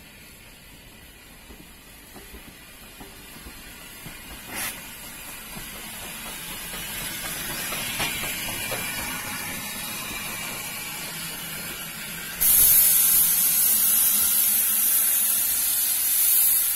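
Avonside 0-6-0 saddle tank steam locomotive coming in slowly, its steam hiss growing louder as it draws alongside. About twelve seconds in, a sudden loud, steady hiss of escaping steam starts and keeps on.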